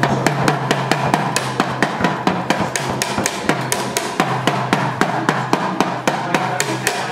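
A child beating a toy drum kit with drumsticks: quick, fairly even hits, about five a second.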